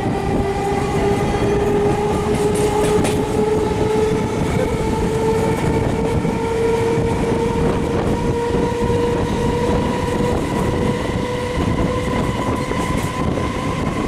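Indian Railways EMU local train gathering speed, heard from an open coach doorway: a steady electric traction-motor whine climbs slowly in pitch for about the first ten seconds, then holds, over the loud rumble and clatter of wheels on the track.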